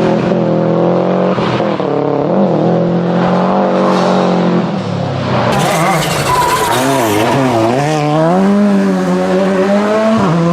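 Rally car engine at full effort on a stage, its pitch climbing and dropping again and again with throttle, lifts and gear changes. About halfway through a louder rushing hiss joins in over the engine.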